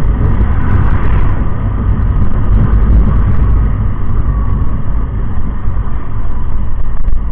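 Motorcycle riding noise picked up by the built-in microphone of an SJCam 4000 Air action camera mounted on the rider's helmet: a loud, steady low rumble.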